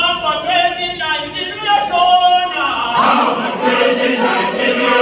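All-male isicathamiya choir singing unaccompanied in close harmony. About three seconds in, the sound thickens as more voices come in strongly together.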